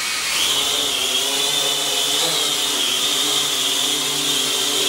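Cheerson CX-33S tricopter's motors and propellers spinning up to lift off, rising in pitch just after the start and then holding a steady high whine as it hovers.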